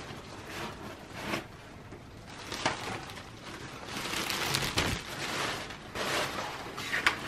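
Packaging being handled as a bulb-framed vanity mirror is unpacked from its foam packing: a soft rustle of sheets with a few short clicks and knocks.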